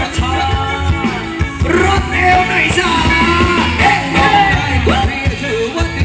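Live Thai ramwong dance band playing to a steady drum beat, with a singer's voice over it.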